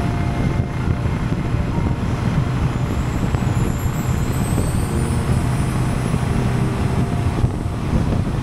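Honda Goldwing motorcycle with sidecar cruising at steady road speed: continuous low engine and road noise mixed with wind rush.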